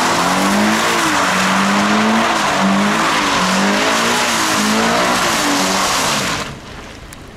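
Toyota 86's flat-four engine revving up and down while the car drifts in circles on a wet surface, over a steady hiss of tyres spinning through water. It cuts off suddenly about six and a half seconds in.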